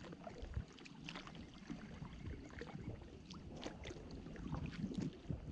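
Kayak paddling on calm water: a double paddle's blades dipping in, with scattered small splashes and drips.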